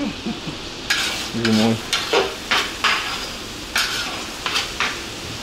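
Julienned carrots sizzling in hot oil in a large metal kazan for plov, stirred with a long-handled skimmer that scrapes against the pot about eight times at irregular intervals. This is the frying of the plov base (zirvak).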